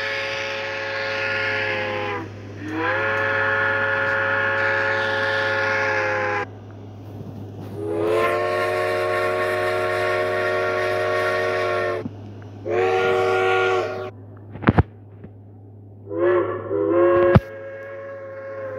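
Steam locomotive chime whistles blowing a series of blasts: three long ones of two to four seconds each, then a shorter one, then a couple of quick short toots near the end. Each blast is a chord of several tones that slides up as it starts and sags as it stops. Two sharp clicks fall in the quiet gaps near the end, over a steady low hum.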